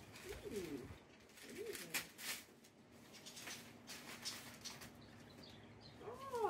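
Gift bag and paper rustling and crinkling as a present is unpacked, in several short bursts. Two brief wordless vocal sounds with a falling pitch come about half a second in and near two seconds, and a longer falling voice sound begins near the end.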